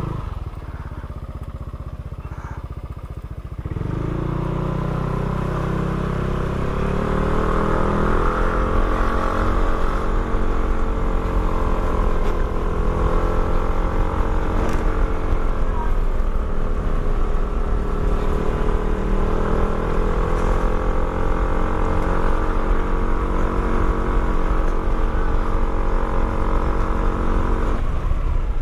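Motorcycle engine running while under way. It picks up a few seconds in and again shortly after, then holds a fairly steady pitch with slight rises and falls.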